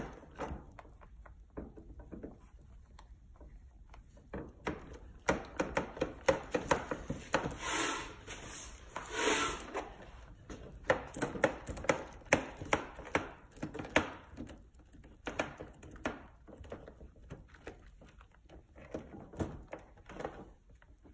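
Gloved fingers rubbing and pressing along plastic film over a wet carbon fiber and resin layup, the film crinkling with many small irregular clicks and crackles, and two longer rubbing swishes in the middle.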